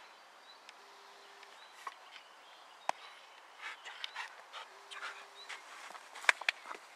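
Dog panting in quick, short breaths as it plays, starting about halfway through, with a few sharp clicks, the loudest near the end.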